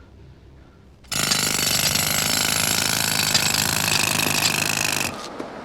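A jackhammer pounding, loud and steady, cutting in suddenly about a second in and stopping briefly near the end.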